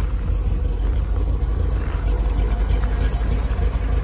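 1963 Chevrolet Corvette C2 Stingray's 340-hp 327 cubic-inch V8 idling steadily, purring smoothly.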